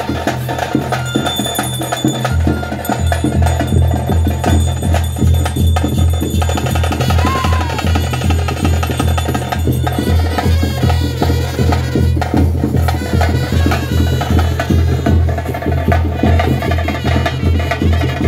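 Traditional Tulu Nadu ritual music for a Nema spirit-worship performance: fast, busy drumming with sharp strokes, a steady pitched melody above it, and a deep drum beat that comes in about two seconds in and keeps a regular pulse.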